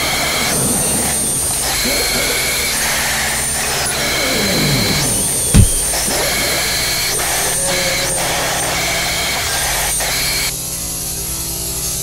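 Dense, harsh noise drone with steady high whistling tones and some falling sweeps, and a single deep boom about halfway through. It drops in level and thins out near the end.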